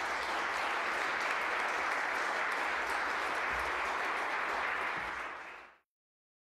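Senators applauding in the chamber, a steady clapping that fades and then cuts off abruptly near the end.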